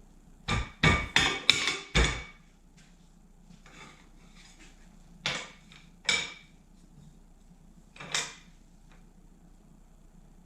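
A hammer knocking wooden bench slats down onto glued wooden dowels: five quick blows within about a second and a half, then three single blows a second or two apart.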